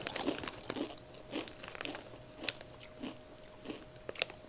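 Close-up crunching and chewing of Zapp's Voodoo kettle-style potato chips: a string of short, crisp crunches, one every half second to second.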